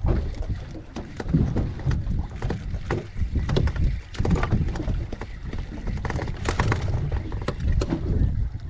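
Small boat at sea: water slapping the hull and wind buffeting the microphone in an uneven low rumble, with scattered sharp knocks.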